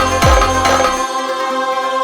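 Electronic film background music: deep, pitch-dropping kick drum hits about two a second over a held synth chord. The drums stop about a second in, leaving the chord sustaining.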